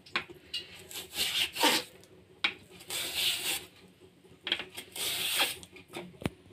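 Raw green banana being drawn across a handheld steel slicer blade into thin slices: several short scraping strokes with pauses between, and a sharp click near the end.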